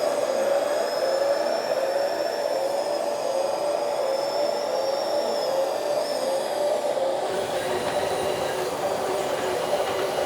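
JDM208 RC Liebherr 920 hydraulic excavator running, its pump motor whining steadily with the pitch wavering slightly up and down as it works. The sound shifts a little about seven seconds in.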